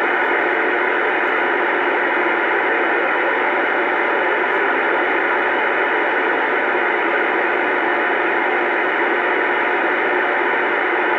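Steady static hiss from a Bearcat CB radio's speaker, the receiver open on channel 28 (27.285 MHz AM) with no station coming through.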